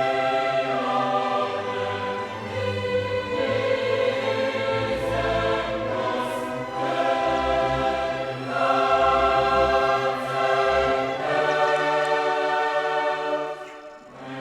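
Background music: a choir singing long held chords, which fade briefly near the end.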